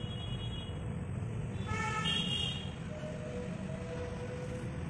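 A vehicle horn toots briefly in two short parts about two seconds in, over a steady low rumble of traffic.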